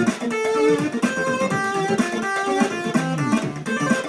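Chiptune music from a Commodore 64's SID sound chip playing an intro's tune: quick plucked-sounding melody notes over a stepping bass line.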